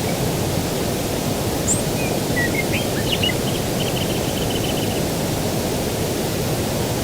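Steady low rushing noise of open countryside, with a few small songbird chirps in the middle and a short rapid trill of repeated notes just after.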